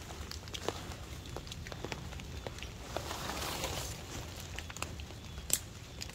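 Rustling and crunching of wet leaf litter underfoot, densest about three seconds in, among scattered light taps and drips, over a low rumble.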